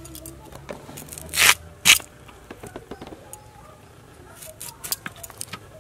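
Elephant foot yam being cut and scraped against a bonti blade. A run of small scrapes and clicks, with two loud, short rasping strokes about a second and a half in.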